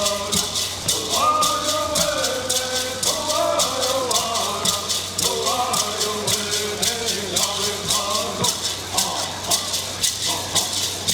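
Cahuilla bird songs: singers chanting a melody to hand rattles shaken in a steady, rapid beat.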